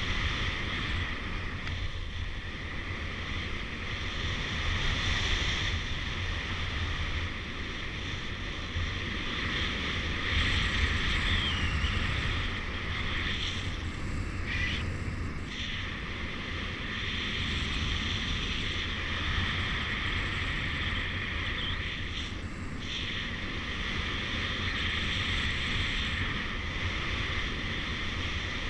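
Airflow rushing over the camera's microphone in flight under a paraglider: a steady wind rush with a deep rumble underneath.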